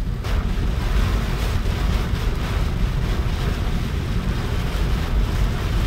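Car driving through rain and gusting wind as a hurricane approaches: a steady low rumble of wind and road noise with a rain hiss over it.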